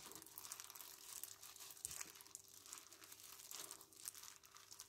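Faint rustling and crinkling of a hand in a thin plastic glove rubbing and squeezing a crumbly dry flour mix in a glass bowl, working the oil and egg into the flour for yeast donut dough.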